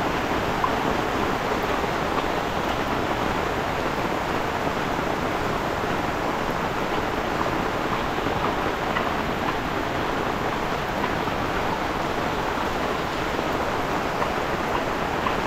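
Heavy rain pouring down steadily on a road and roadside vegetation, with runoff water rushing along the road edge.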